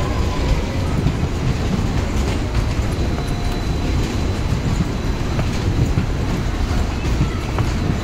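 Waltzer fairground ride running: a steady rumble of the spinning cars and rotating platform, heard from inside a moving car.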